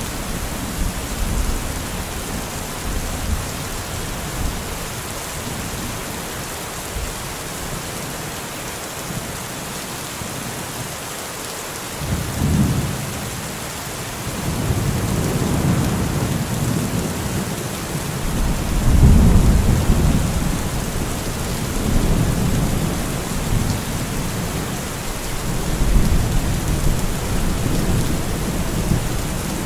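Steady rain hissing, with rolling thunder: low rumbles swell up about twelve seconds in and come back in several waves, the loudest about two-thirds of the way through.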